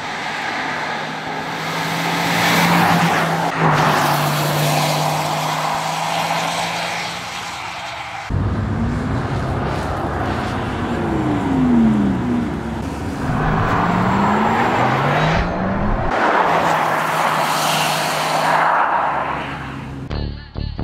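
Porsche Taycan Turbo S's electric drive motors whining over tyre noise as the car drives past. The whine holds steady at first, then glides up and down in pitch through the middle shots as the car passes.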